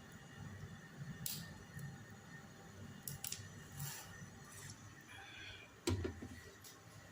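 Faint kitchen handling sounds from chapati making: several brief scrapes and clicks, and a soft thump about six seconds in.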